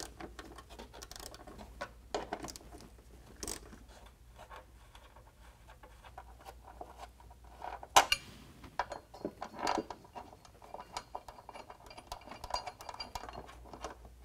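Small metal clinks, taps and scrapes of bolts, washers and a steel mounting bracket being handled and threaded in by hand against a truck's rocker panel, with a sharp metallic clack about eight seconds in.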